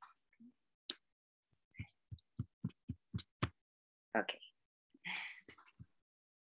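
Clicking at a computer while paging through a PDF: one sharp click about a second in, then a quick, even run of about seven clicks, roughly three a second. A woman says "okay" near the end.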